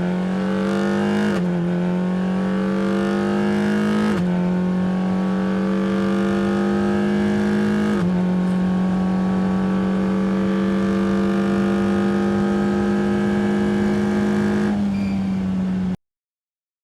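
Car engine accelerating through the gears: the engine note climbs, then drops at each of three upshifts, then climbs slowly for a long stretch before easing off and cutting off abruptly about a second before the end.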